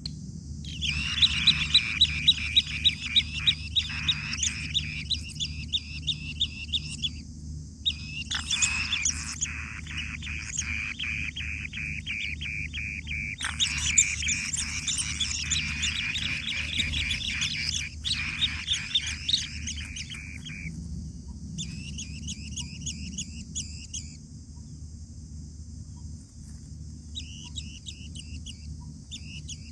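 Asian green bee-eaters calling at the nest with rapid, repeated chirps in several bouts separated by short pauses, loudest and sharpest in the first few seconds. A steady high insect hiss runs underneath.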